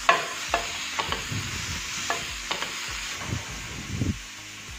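Green beans, carrots and mushrooms sizzling in hot oil in a pan while a wooden spatula stirs them, scraping and knocking against the pan about every half second over a steady frying hiss.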